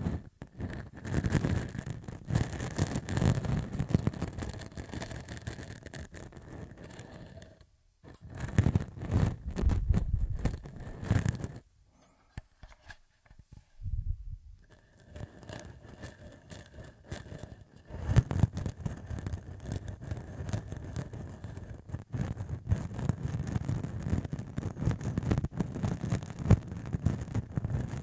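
Short beard stubble rubbed directly against a Tascam recorder's microphone capsule: close, rough scratching and rasping in quick back-and-forth strokes. It breaks off briefly about eight seconds in, falls nearly silent for about two seconds around twelve seconds in, then resumes and grows louder in the second half.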